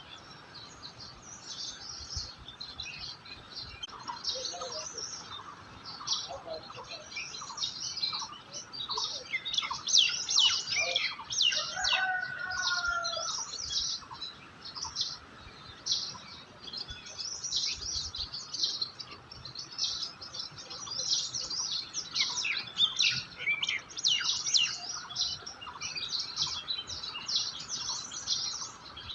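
Many small birds chirping and twittering together at once, a dense chorus of quick high notes, with a few lower whistled phrases about halfway through.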